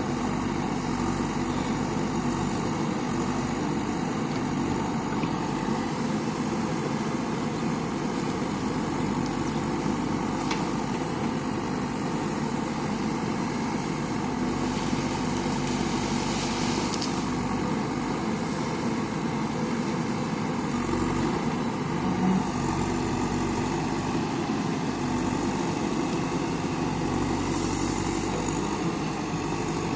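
Diesel engine of a JCB backhoe loader running steadily, with a brief hiss about halfway through and again near the end, and a single short thump about two-thirds of the way in.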